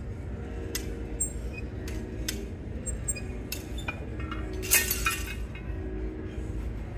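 Gym equipment being handled: a series of light metal clinks and clicks, the loudest a brief ringing clink about five seconds in, over a steady low hum.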